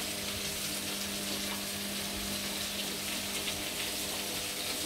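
Onion, celery and bell pepper sauteing in a pan: a steady, even sizzle with a constant low hum underneath.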